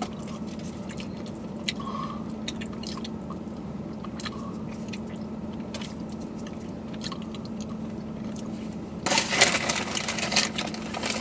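Wet licking and smacking of mouths eating soft-serve ice cream cones, with small scattered clicks, over a steady hum inside a car. About nine seconds in comes a louder stretch of rustling as a hand goes into a Takis chip bag.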